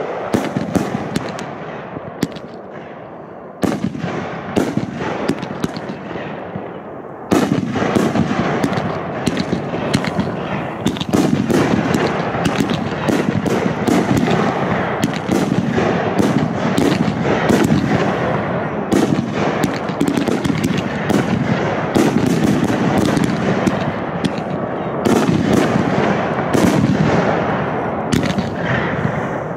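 Fireworks going off in rapid succession: a dense run of sharp bangs and crackling, thickening into a near-continuous barrage about seven seconds in.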